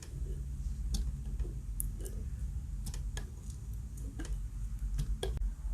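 Glue slime being handled and poked, giving about eight sharp, irregular little clicks and pops over a low steady hum.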